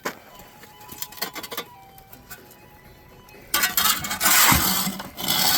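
Hot coals being raked and shovelled out of a campfire: light metallic clinks and knocks, then a louder rough scraping from about three and a half seconds in that lasts about two seconds.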